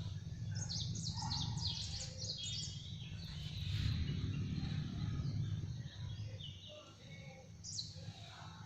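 Small birds chirping: quick runs of short falling high notes for a couple of seconds starting about half a second in, and again near the end, over a steady low rumble.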